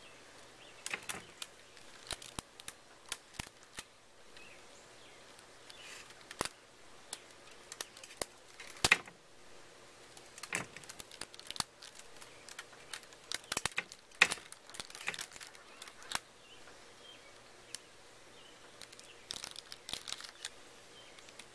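Rubber bands being stretched and let go onto a watermelon that already carries a thick belt of them: irregular sharp snaps and clicks, sometimes several a second, some louder than others.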